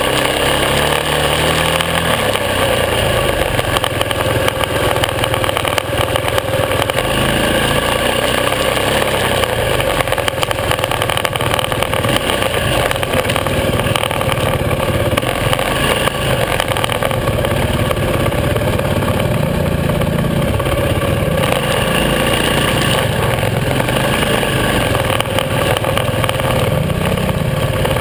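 Supermoto motorcycle engine running along a dirt trail, the revs rising and falling with the throttle.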